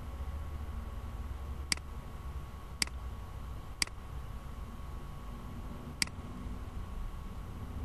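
Four sharp computer-mouse clicks at uneven intervals, over a steady low hum of room and microphone noise.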